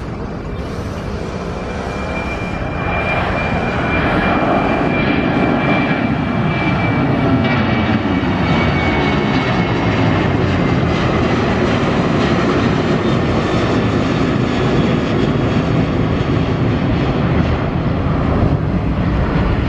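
Boeing 737's twin CFM56 turbofan engines at take-off thrust as the jet lifts off and climbs out. It is a loud jet rumble that swells over the first few seconds, with a high fan whine that slowly falls in pitch as the plane passes, then holds steady.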